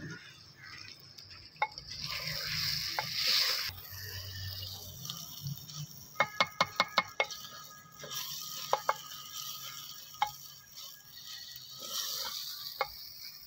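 Wooden spoon stirring soaked daal mash (urad dal) into sizzling fried masala in a clay pot: a frying hiss, strongest in the first few seconds, with a quick run of sharp wooden knocks against the pot about six seconds in and a few more single knocks later.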